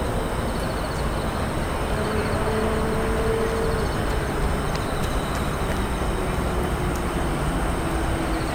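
Steady low rumble of distant vehicle engines, with a faint droning tone that slowly falls in pitch over several seconds.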